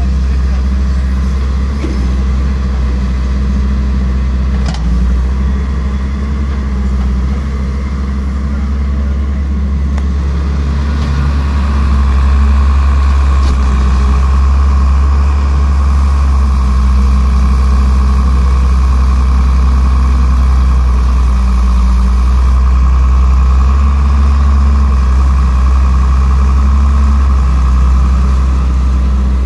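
Crawler excavator's diesel engine running steadily while it digs, a low even drone. About twelve seconds in it gets a little louder and a steady higher whine joins it.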